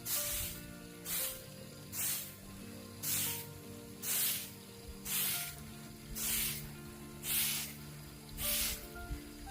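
Background music with a slow melody and a sharp hissing beat that comes about once a second.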